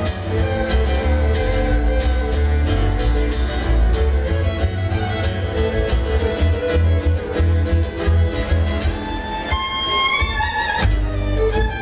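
Live acoustic band in an instrumental break: fiddle leading over strummed acoustic guitar and upright bass, in a country/bluegrass style. Near the end the bass stops for about a second while the fiddle carries on with high sliding notes.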